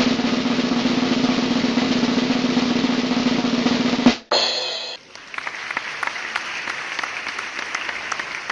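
Snare drum roll for about four seconds, ending in a sharp hit. After that comes a brief ringing tone, then a quieter, steady noise full of small clicks.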